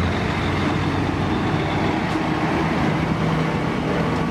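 Concrete mixer truck on a city street, its diesel engine running with a steady low hum over traffic noise.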